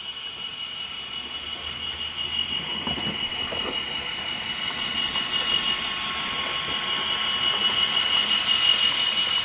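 OO gauge model train running along the track, with a steady high-pitched whine over a low rumble, growing louder as it approaches.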